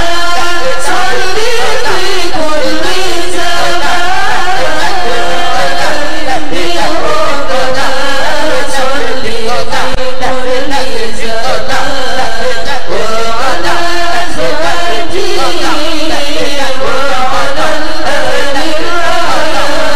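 Arabic devotional chanting of a shalawat prayer. The voices sing a wavering, ornamented melody line continuously, with a new sung phrase starting near the end.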